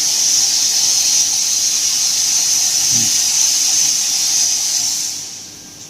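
A steady, loud, high-pitched hiss that fades away just before the end.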